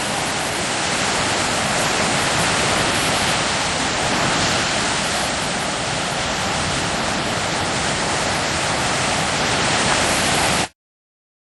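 Strong storm wind blowing hard over the microphone, a dense steady rush that cuts off abruptly near the end.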